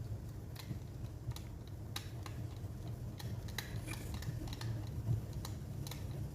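Irregular small clicks and taps of laptop parts and screws being handled and fitted into place, several a second at times, over a low steady hum.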